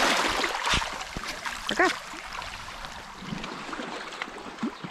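Small sea waves washing in over shoreline pebbles and rocks, loudest at the start and easing off after about two seconds. Two soft low knocks come about a second in.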